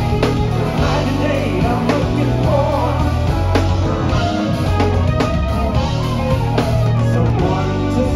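Live rock-funk band playing: electric bass, drum kit, electric guitars and keyboard, with the bass notes loudest and drum hits marking the beat.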